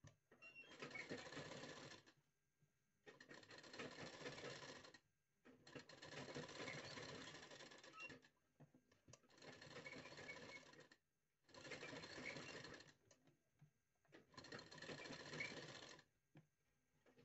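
Black domestic sewing machine stitching along a blouse neckline in six short runs, each about one and a half to two and a half seconds long, with brief stops between them.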